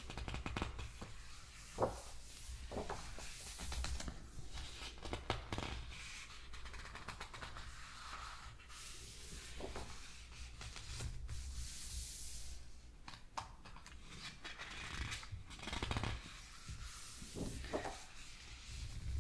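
Pages of a large hardcover photo book being turned and smoothed by hand: repeated paper swishes and rustles with scattered small taps and clicks.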